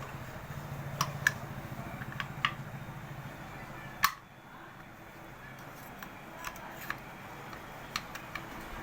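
Scattered light clicks and knocks of hand work, the loudest about four seconds in, over a low hum that stops at that knock.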